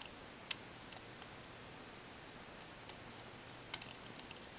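A handful of light metal clicks and ticks, irregularly spaced, the loudest about half a second in. They come from a small Torx T6 screwdriver bit turning the pivot screw back into a Kershaw Chive pocket knife.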